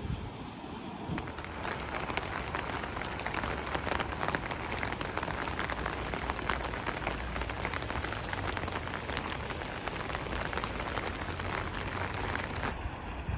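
Heavy rain falling, with a dense run of drops striking close by; it starts suddenly about a second in and cuts off near the end.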